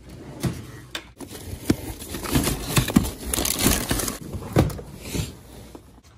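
Irregular crunching and crackling, with a dozen or so sharp knocks, loudest in the middle and fading near the end.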